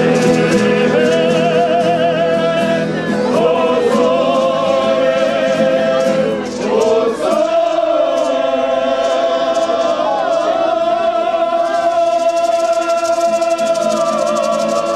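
Live singing over a strummed acoustic guitar, the voice holding a long note with vibrato through the second half.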